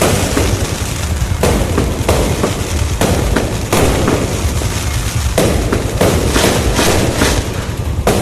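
Fireworks display bursting overhead: a run of sharp bangs every second or so over continuous crackling and rumble.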